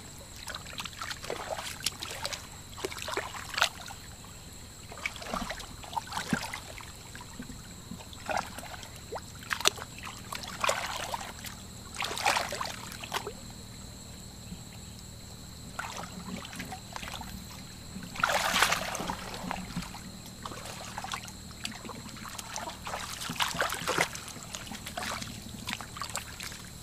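Hands sloshing and splashing in shallow muddy water while groping in the mud for fish, in irregular bursts, with the loudest splash about two-thirds of the way through.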